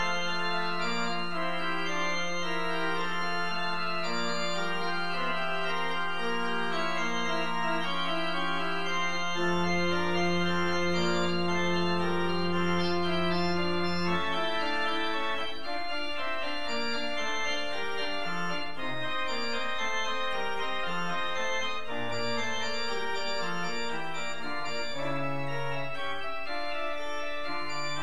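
Church organ playing the postlude: full sustained chords over a long held low bass note, which gives way about halfway through to a moving bass line.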